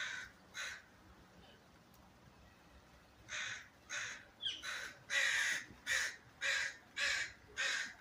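Crows cawing: two caws near the start, then a run of eight harsh caws about two a second. These are the crows' agitated calls at an owl that has caught one of them.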